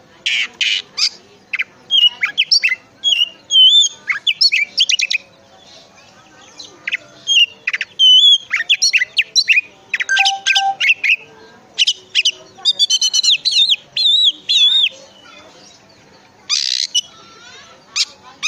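Oriental magpie-robin (kacer) singing loudly: varied whistled phrases with rising and falling slurs, quick trills, and harsh rasping notes near the start and near the end, delivered in bursts with brief pauses.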